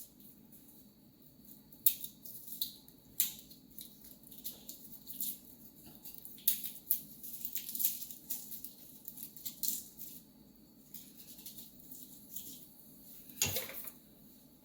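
Irregular small clicks, crackles and rustles of kitchen items being handled, with one heavier knock near the end.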